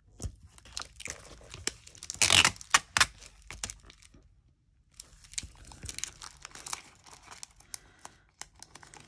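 Clear sticky tape and a clear plastic sheet crackling and crinkling as the tape is handled and pressed down by hand, a run of sharp crackles, loudest about two seconds in, with a brief lull around the middle.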